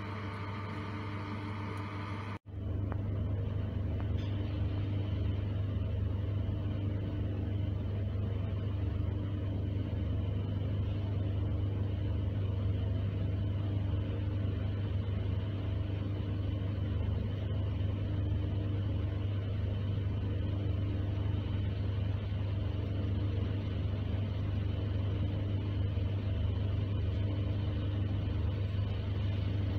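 Background music for the first couple of seconds, cut off suddenly. Then the inside of an ER9p electric multiple unit's passenger car: a steady low hum and rumble from the train, with a faint tone that comes and goes every second or two.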